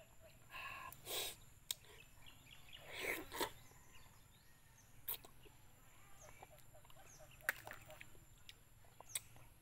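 Mouth sounds of someone eating ripe marang fruit: a few short sucking, slurping bursts as the soft flesh is pulled off by mouth, with scattered lip smacks and small clicks.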